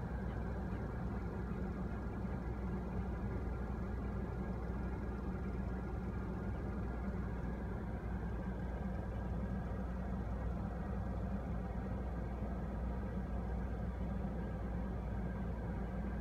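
Car engine idling: a steady, even low hum that does not change.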